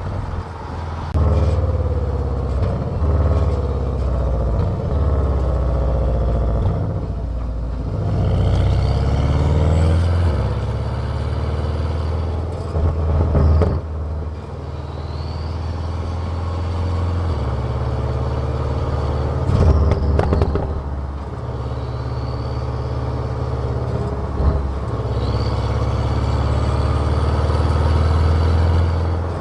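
Car exhaust recorded close to the tailpipe while driving: a loud, low drone whose pitch steps up and down several times as the engine speed changes, with faint rising whines above it every few seconds.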